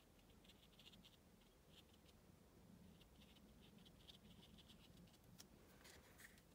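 A fine paintbrush tip dabbing and stippling on watercolour paper: faint, quick light taps in short irregular clusters.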